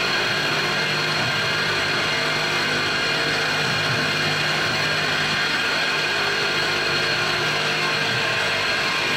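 CNC-converted PM-727M milling machine cutting a round bore in an aluminum block: the spindle runs and the cutter works steadily with a constant whine.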